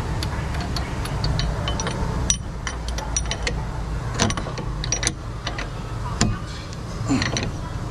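Metal clicks and clinks of a socket wrench and fingers on a car's front disc brake caliper during a brake pad change, a handful of sharp ones spread through, over a steady low hum.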